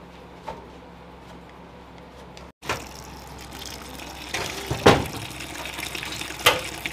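A thin stream of water pouring into a large metal pot of dry ground spices to make a masala paste, starting about two and a half seconds in after a quieter stretch, with a couple of sharp knocks along the way.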